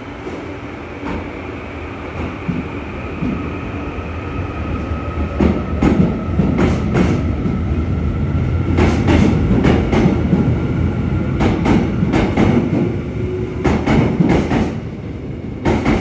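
Seoul Subway Line 1 electric train rolling over a rail joint: its wheels strike the joint in quick clusters of clacks as each pair of bogies crosses, over a steady rumble and a faint high whine. The clacks begin about five seconds in, come every second or two, and the last set falls at the very end as the train's end passes.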